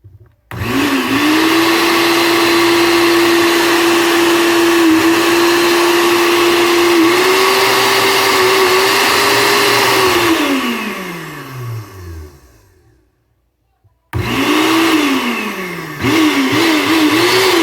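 Blender motor switched on and running at full speed with a steady high whine for about ten seconds, then switched off and winding down to a stop. After a short pause it is run again in two brief bursts, the second wavering in pitch. This is its test run after its broken power cord was replaced, and the motor runs.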